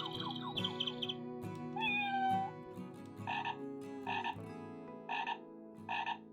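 Avantek wireless doorbell chime playing its tones: the end of a short electronic melody, then a recorded frog croak sounding four times about a second apart.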